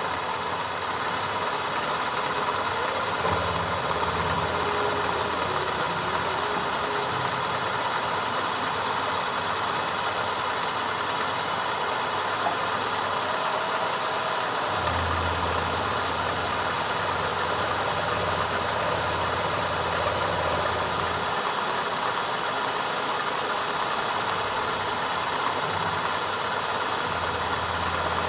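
A machine running steadily, a continuous whirring hiss with a low hum that comes and goes, strongest from about fifteen to twenty-one seconds in.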